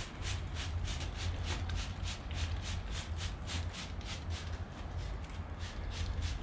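Hand spray bottle spritzing meat: quick hissing squirts about three a second, over a steady low rumble.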